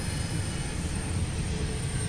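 Intermodal freight train's double-stack container cars rolling past on the rails: a steady, low rolling noise with no breaks.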